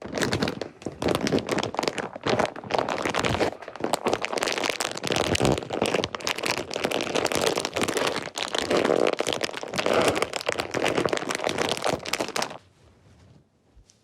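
Dense, close-miked crinkling and crackling, made as an ASMR trigger. It stops abruptly near the end.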